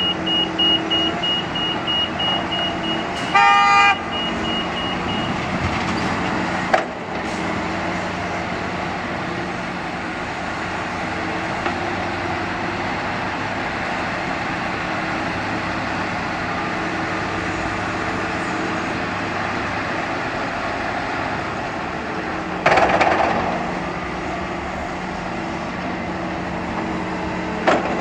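Diesel engines of a Volvo wheeled excavator and tipper trucks running steadily. A high reversing beeper beeps rapidly for the first five seconds or so, and a vehicle horn toots once, briefly, about three seconds in. A loud rushing burst comes about 23 seconds in.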